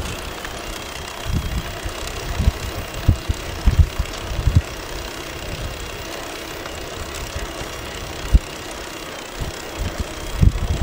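Ride on a bicycle heard from a microphone at the handlebars: a steady rush of moving air and road noise, broken by irregular low thumps of wind buffeting the microphone.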